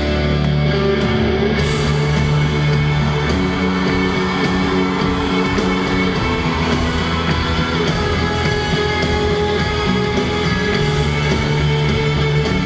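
Rock band playing live and loud, electric guitar to the fore over sustained chords that change every second or two, with no singing.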